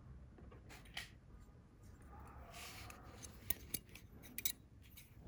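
Steel scissors being handled and opened, giving a few light metallic clicks of the blades, with a short rustle of handling about two and a half seconds in.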